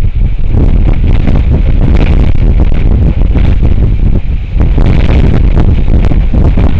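Strong gusty wind buffeting the microphone: a loud, continuous low rumble that rises and falls with the gusts.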